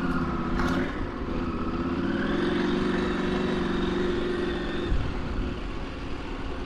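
KTM 890 Adventure R Rally's parallel-twin engine running at steady throttle on a dirt track, heard from the rider's position over wind rumble on the microphone. The engine note lifts slightly about two seconds in and drops away about five seconds in as the throttle eases.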